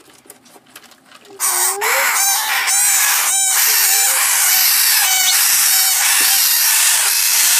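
A brood of red-rumped parrot nestlings giving a loud, continuous rasping chorus as they are handled. It starts about a second and a half in and cuts off suddenly near the end.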